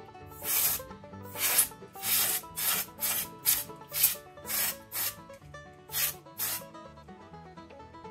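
Gloved hands handling the opened plastic projector housing: about a dozen short rubbing noises at an uneven pace, over quiet background music.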